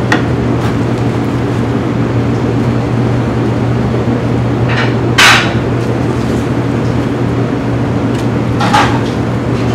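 Steady low hum of commercial kitchen machinery, with a few short clatters of ceramic plates being set down and moved on a stainless-steel counter. The loudest clatter comes about five seconds in, and a smaller one near the end.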